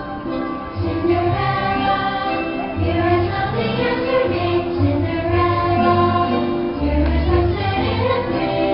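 Show soundtrack: orchestral music with a choir singing sustained notes over a steady bass.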